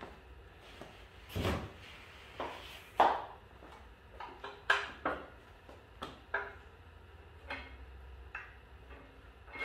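Irregular clicks and knocks of a steel engine stand and its bolted-on wooden board being handled, with the loudest knock about three seconds in.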